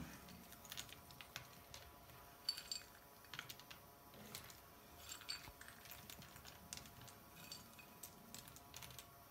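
Faint, irregular small clicks of roasted hazelnuts being picked from a small ceramic dish and set down by hand.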